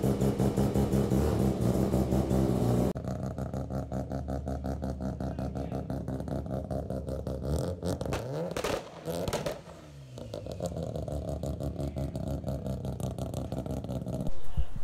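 Half-bridge-ported Mazda Renesis rotary engine running with a rapid, even pulse. The sound drops in level about three seconds in, and the pitch slides briefly around the middle.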